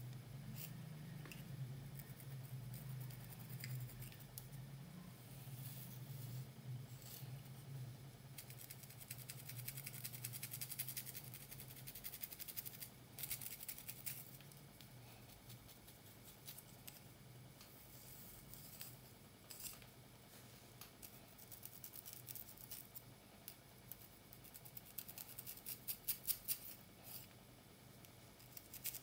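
Wooden three-pronged pick scratching and raking along the scalp through coarse hair in quick short strokes. Near the end the strokes come louder, about three a second.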